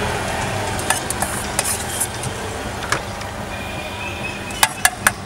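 A spoon scraping and clicking as a paneer tikka mixture is spread onto bread slices, with a few light clicks and three sharp clicks near the end, over a steady background hum.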